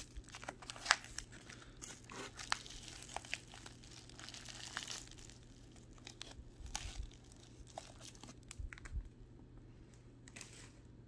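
Plastic packaging crinkling and tearing by hand: a taped plastic poly mailer being pulled open, with irregular crackles and rustles, busiest in the first half and another short burst near the end.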